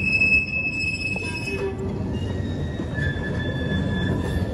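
Steel freight gondola cars rolling slowly past, their wheels squealing on the rails over a low rumble. One long high squeal fades out before halfway, and a lower squeal takes over about three seconds in.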